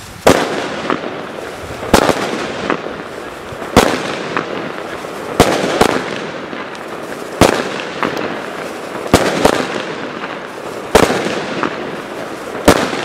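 30 mm-calibre fireworks battery (Argento 'Veronika') firing shot after shot: a sharp bang roughly every one and a half to two seconds, with a crackling, hissing wash from the bursting stars in between.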